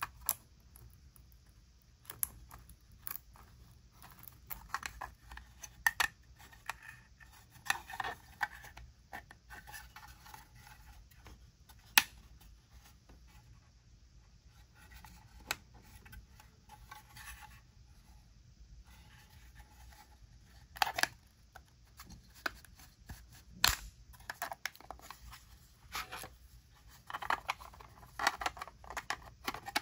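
Small 3D-printed plastic collapsible crate being folded and unfolded by hand: its hinged panels click and snap into place, with scraping and rubbing of plastic on plastic between the clicks. The scaled-down parts fit tightly.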